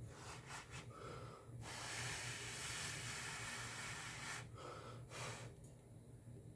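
A person breathing close to the microphone: short breaths, then one long, steady breath out lasting about three seconds, then a few more short breaths. A low electrical hum runs underneath.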